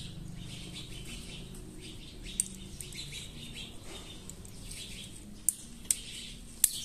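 Four small, sharp metallic clicks as a little spring-loaded button is turned and worked out of a Beretta 950 pistol's aluminium frame. Birds chirp steadily in the background.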